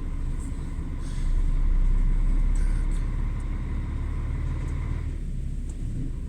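Truck engine idling, heard from inside the cab: a steady low rumble that swells for a couple of seconds about a second in.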